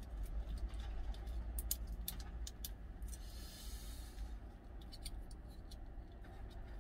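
Small clicks and crinkles of fingers picking at and peeling the foil lid off a small plastic yogurt drink bottle, with a brief soft tearing hiss about three seconds in. A steady low hum runs underneath.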